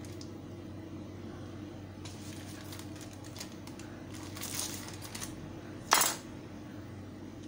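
Plastic cheese-slice wrapper rustling and crinkling as slices are peeled out, with light clicks from handling on a wooden board, and one sharp knock about six seconds in. A faint steady low hum lies underneath.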